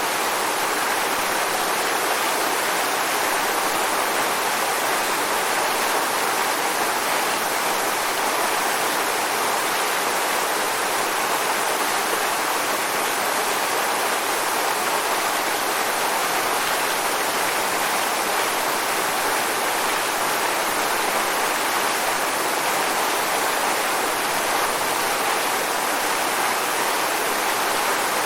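Waterfall: steady rushing and splashing of falling water, an even, unbroken roar with no changes.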